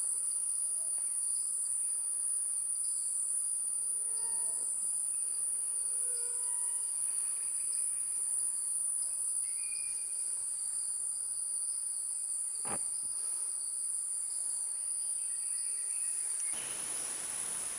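Steady, high-pitched chorus of forest insects such as crickets, with a few faint, brief bird notes and a single sharp click about two-thirds of the way through.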